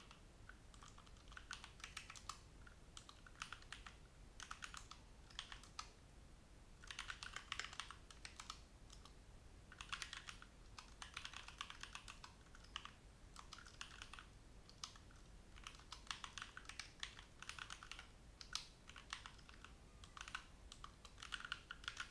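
Faint typing on a computer keyboard, with runs of quick keystrokes broken by short pauses.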